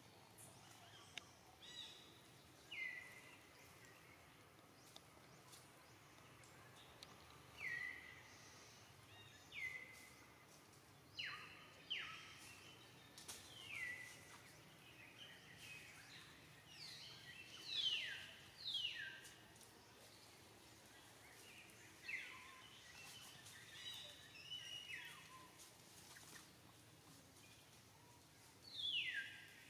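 Short, high-pitched animal calls, about a dozen spaced irregularly, each sliding quickly down in pitch, over faint background hiss.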